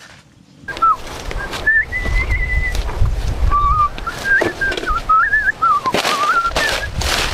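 A wavering whistle that slides up and down between about 1 and 2 kHz, held in long phrases. Sharp knocks of a hoe chopping into the soil come through under it, over a low rumble.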